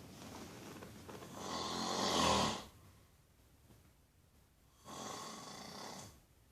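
Snoring in a slow breathing rhythm. A long snore swells to its loudest about two and a half seconds in and stops, and after a pause a shorter, softer snore follows about five seconds in.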